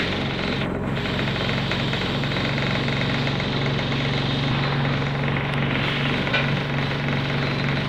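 Bus engine idling while the bus stands at a stop, heard from inside the passenger cabin as a steady low hum with rattly vibration.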